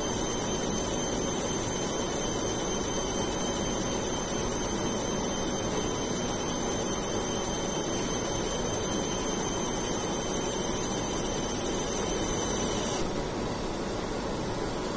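UV laser marking machine running while it marks glass: a steady machine hiss with a thin high whine. The whine cuts off suddenly about two seconds before the end, leaving a quieter steady hiss.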